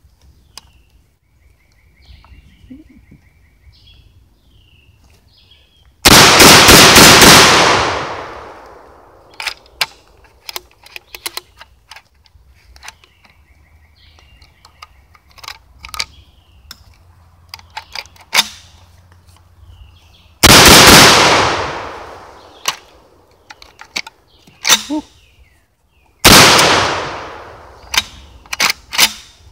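Three 12-gauge shotgun blasts from an SDS Lynx 12 semi-automatic shotgun firing Winchester 7.5 shot loads, each very loud and trailing off over about two seconds. The first comes about six seconds in, the second some fourteen seconds later, the third about six seconds after that.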